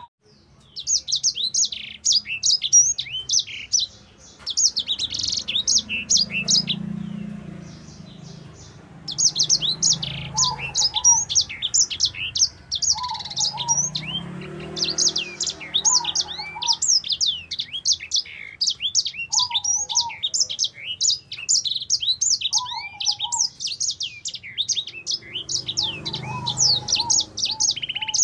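Grey singing finch (sanger) singing a fast, high twittering song of rapid chirps and trills, breaking off briefly a few times. From about a third of the way in, a lower short call repeats every two to three seconds behind it.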